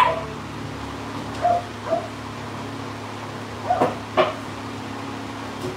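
A dog giving a few short barks, in two pairs about two seconds apart, over a steady low hum.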